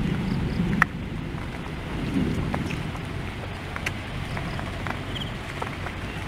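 Light rain falling, with scattered drops ticking close by at irregular intervals over a steady low rumble; one sharper tick about a second in.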